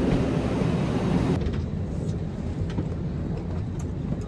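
Steady low rumble of an airliner cabin, with a few faint clicks. About a second and a half in, the higher hiss drops away and only the low rumble remains.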